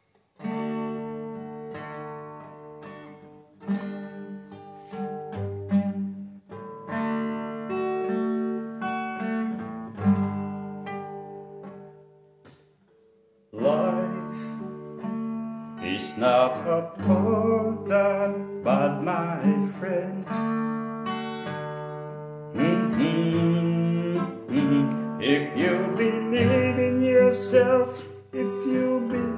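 Acoustic guitar strummed in chords, alone at first; after a short pause about 13 seconds in, a man's singing voice comes in over the strumming.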